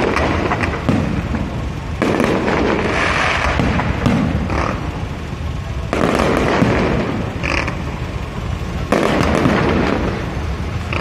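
Electronically fired aerial fireworks going off in rapid volleys of dense crackling bursts and booms. Fresh waves break about two, six and nine seconds in.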